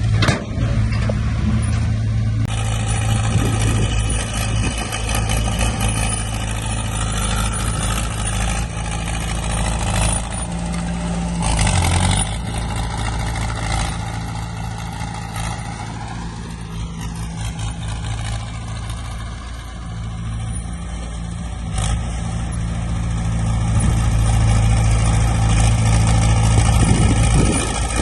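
Heavy diesel earthmoving machinery engine running steadily, its pitch briefly rising and falling a little past the middle, with a few short surges of noise.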